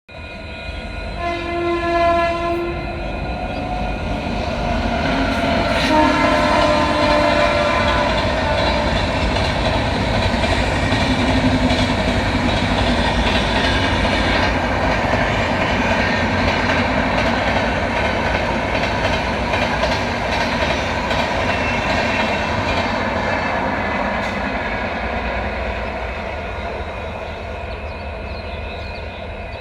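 Rajdhani Express passing: the locomotive horn sounds in two spells, about one to three seconds in and again around five to eight seconds, then the coaches run by in a steady rumble with wheels clicking over rail joints, easing off near the end.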